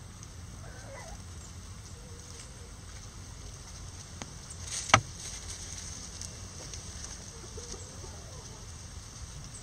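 Bantam chickens clucking softly now and then over a steady low rumble, with one sharp tap about halfway through.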